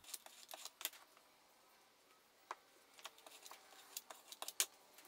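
A string of sharp clicks and taps from a hand tool worked against a stack of perspex and plywood sheets on a workbench, irregular, with the loudest tap a little before the end.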